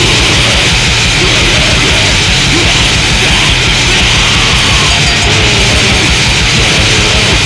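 Crust grind band demo recording: distorted guitars and bass over fast, dense drumming, loud and unbroken.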